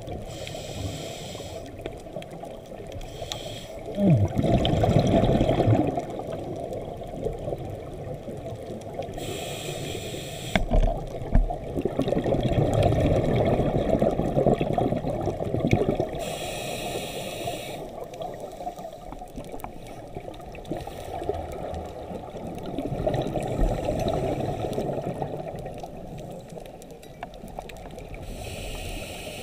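Scuba regulator breathing heard underwater through a camera housing: a short hiss about every seven seconds and a muffled bubbling rumble of exhaled air between them.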